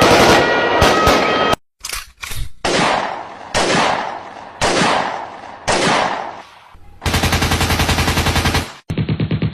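A string of single sharp bangs, each dying away, then about a second and a half of rapid, evenly spaced rattling knocks that cut off abruptly. Another rapid rattle starts near the end.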